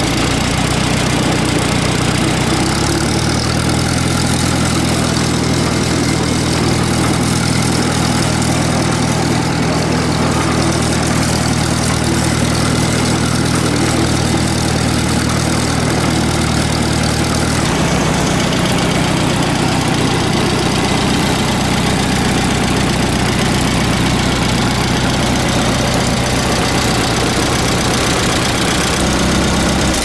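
An old Allis-Chalmers tractor's gasoline engine running steadily just after a cold start on choke, having sat unused for two to three weeks. Its note shifts a few seconds in and again a little past the middle.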